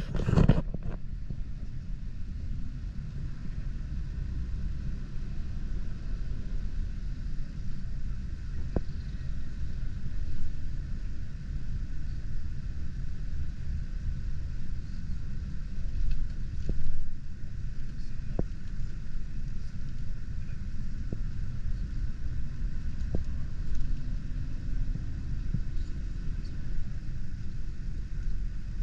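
Train running, heard from inside the carriage: a steady low rumble with a few faint sharp clicks scattered through it. A brief louder noise comes at the very start.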